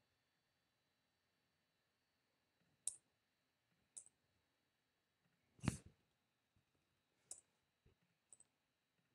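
Near silence broken by a handful of faint, scattered computer clicks, about five in all, as an on-screen text box is edited. One click a little past halfway is louder and carries a dull thump.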